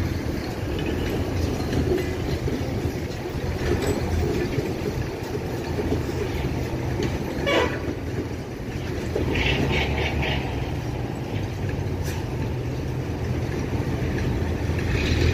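Low, steady rumble of a heavy vehicle's engine while driving, heard from on board, with a short sharper sound about halfway through.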